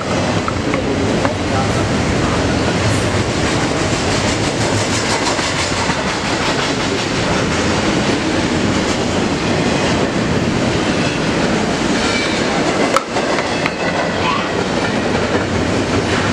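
Double-stack intermodal container train rolling past at speed: a steady, loud rumble and rattle of steel wheels on rail as the well cars go by, with one sharp click late on.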